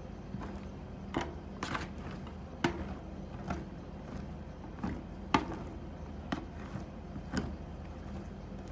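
Metal spatulas chopping and scraping rolled ice cream mixture on a metal pan: irregular clacks and taps of the blades against the pan, with a few short scrapes.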